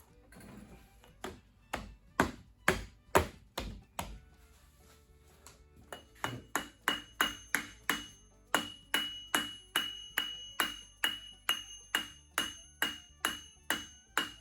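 Hammer blows tapping the heated camshaft gear onto the camshaft, each ringing metallically. There are a few hard strikes in the first four seconds, then steady, even taps about two and a half a second from about six seconds in; the gear is a tight fit on the shaft.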